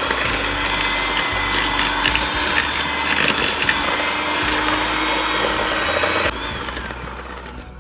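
Electric hand mixer running, its beaters churning butter and granulated sugar in a bowl with a gritty scraping over a steady motor hum. It stops about six seconds in.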